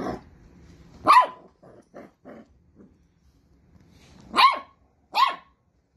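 Dachshund puppy barking: three high, sharp barks, one about a second in and two close together near the end, with a few fainter short sounds in between.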